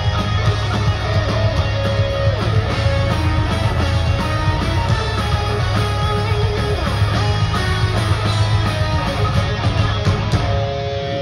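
A power metal band playing live and loud: an electric guitar carries a melodic line over pounding drums and bass.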